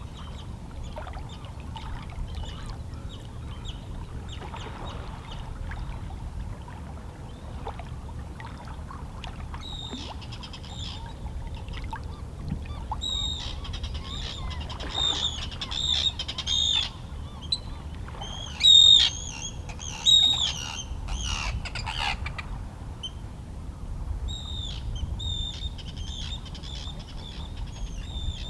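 A flock of seabirds calling over and over in short, high cries, the calls thickest and loudest in the middle stretch. Underneath, calm sea waves lap softly against shoreline rocks in a steady low wash.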